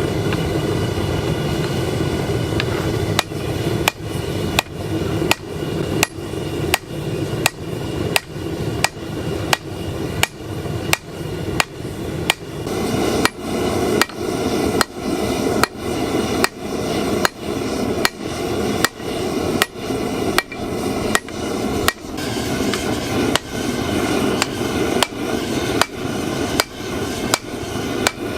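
Hand hammer forging hot 5160 steel on an anvil: evenly paced blows about one and a half a second, each with a short ring, starting about three seconds in, over a steady background noise.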